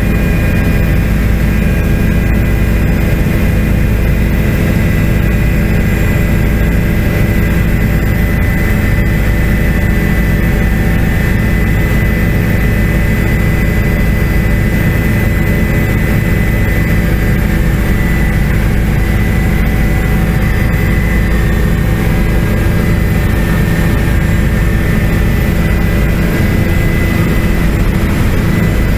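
Helicopter engine and rotor running steadily in flight, heard from inside the cabin: a loud, constant low rumble with a steady high whine over it.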